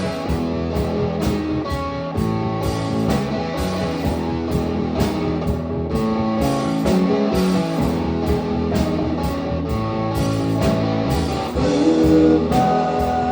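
Guitar-led rock music: plucked and strummed guitar notes ringing over a low bass line, with one note held high near the end.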